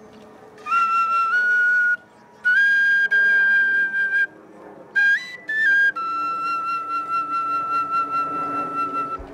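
A solo flute-like wind instrument playing short phrases of clear high held notes, each stepping up slightly in pitch, with brief breaths between them; the last phrase is a single long held note of about three seconds.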